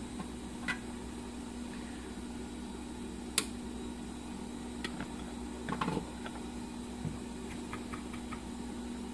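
Small clicks and taps of hand tools on a phone board at a repair bench, one sharp click about three seconds in and a short cluster near six seconds, over a steady low hum.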